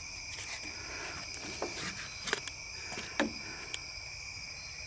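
Steady, high-pitched chorus of night insects such as crickets, with a few scattered short taps and knocks as a catfish and a plastic measuring board are handled on wooden dock planks.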